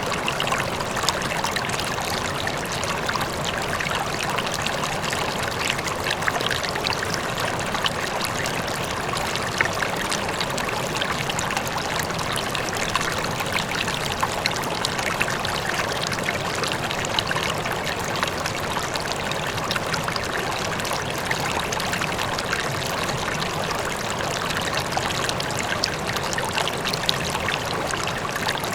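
River flowing steadily, a continuous rush of water with small splashes and trickles, and a faint waterfall in the distance.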